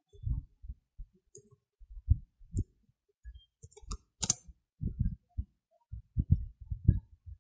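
Typing on a computer keyboard: a run of irregular keystrokes.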